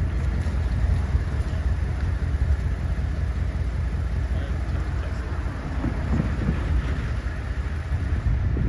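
Loram rail grinder train passing at speed, a loud steady rumble of its engines and wheels on the rail, running through without grinding.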